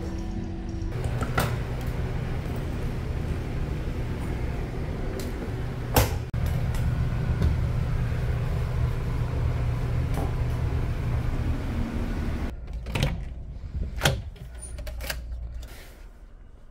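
Towels and clothes being handled and laid out, with a few sharp clicks and knocks, the loudest about six seconds in, over a steady low hum that drops away about twelve seconds in.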